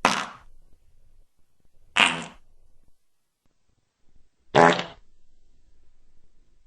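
Three short fart sound effects, about two seconds apart, the last one the loudest.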